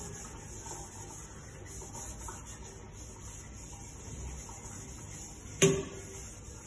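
Stainless steel bowl being scrubbed and handled in a steel kitchen sink: faint rubbing, then one sharp metallic clank with a short ring about five and a half seconds in as the bowl knocks against the sink. A steady high-pitched hiss runs underneath.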